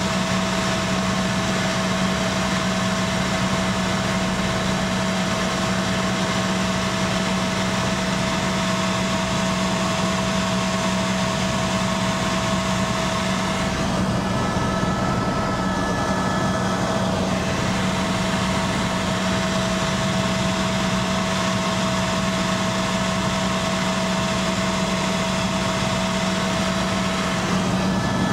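Steady drone of a helicopter's engine and rotor heard from inside the cabin: an even hum with a constant low tone under a wash of engine and air noise.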